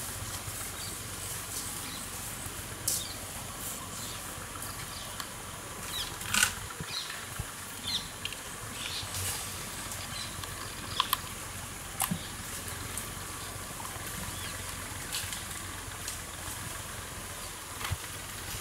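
Wild Asian elephant herd in forest brush: scattered twig snaps and rustles over a steady background hiss, with a few short high chirps.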